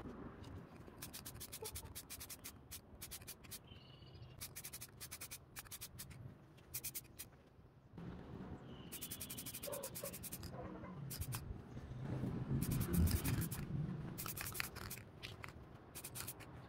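Clusters of light, sharp clicks and scraping, as from small hands-on work on a hard object, with a brief pause about halfway.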